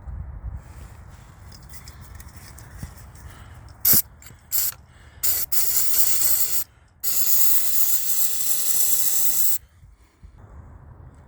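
Aerosol carburetor cleaner hissing from the can: three short squirts about four seconds in, then two longer sprays of about one and about two and a half seconds. It is sprayed into the snowblower carburetor's central orifice to dissolve the carbon clog that stops the engine from starting.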